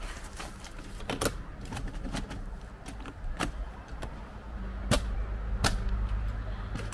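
Sharp metal clicks and clacks of a telescopic roof-top tent ladder being pulled out and climbed, one click every second or so. A low steady hum comes in about two-thirds of the way through.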